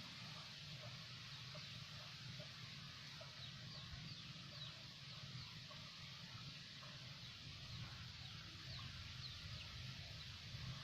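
Faint birds calling outdoors: many short falling chirps and low clucking notes, over a steady low hum.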